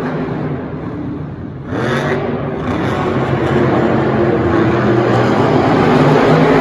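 Vehicle engine running and revving, its pitch rising and falling, with a short burst of noise about two seconds in.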